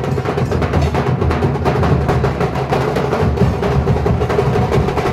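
A Nasik dhol ensemble beating large barrel drums with sticks: a loud, dense, driving rhythm of sharp stick strikes over deep booming drum tones, steady throughout.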